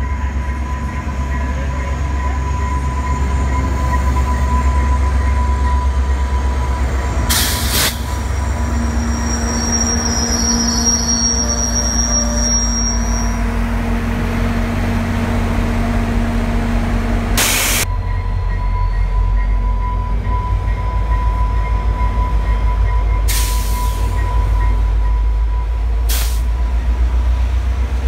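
Passenger train going by at speed: an EMD F40PH-2 diesel-electric locomotive's 16-cylinder two-stroke engine rumbling past close, then stainless steel passenger cars rolling by with a steady rail roar. Thin high-pitched wheel squeal comes in about a third of the way through, and there are a few sharp knocks.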